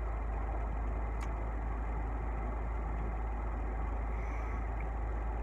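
Steady low rumble of an idling vehicle engine, with a faint click about a second in.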